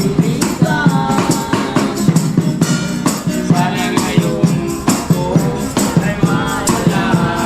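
Street serenaders singing a Tagalog song together, accompanied by a steady shaken-percussion beat.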